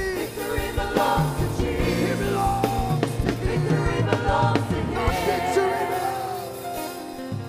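Congregational gospel worship song: a group of singers on microphones sing together over a live band, with bass notes and regular drum hits underneath. The music eases off a little near the end.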